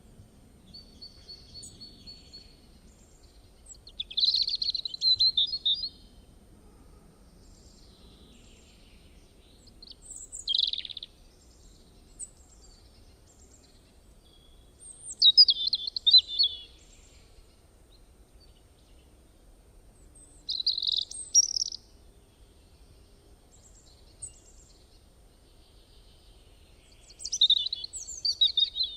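A bird singing: five short phrases of chirping song a few seconds apart, over faint low background noise.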